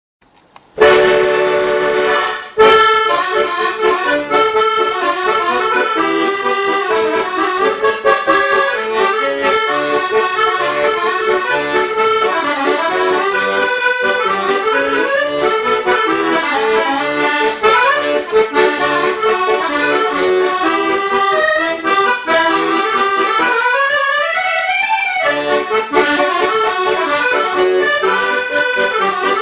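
Accordion music, a lively tune that starts about a second in and keeps playing steadily.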